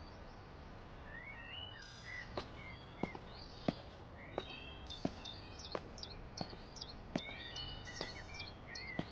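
Small birds chirping and twittering over a quiet outdoor background. From about two seconds in they are joined by a regular series of about ten sharp clicks, roughly one every 0.7 s, which are louder than the birds.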